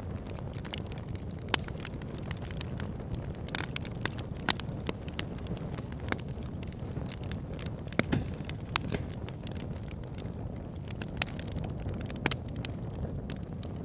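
Wood fire burning in a fireplace: a steady low rumble of flames with frequent irregular crackles and sharp pops from the burning logs.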